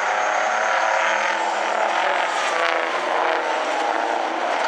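Diesel engines of several racing semi-truck tractors running hard together on the track, a loud steady blend of engine notes.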